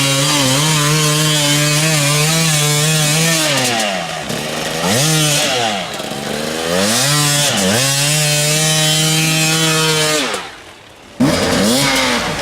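Enduro motorcycle engine held at high revs, its pitch dropping and climbing back three times as the throttle is closed and reopened. About ten seconds in it falls away and goes almost quiet, then comes back suddenly with a sharp burst.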